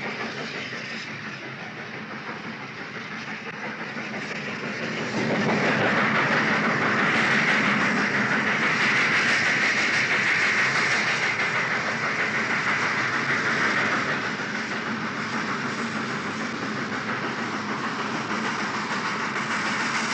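Train rolling along the rails, a continuous rattling clickety-clack rumble that grows louder about five seconds in.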